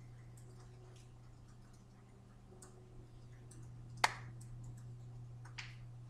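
Faint taps and clicks of hands meeting and brushing together while signing, the sharpest about four seconds in and another shortly before the end, over a steady low hum.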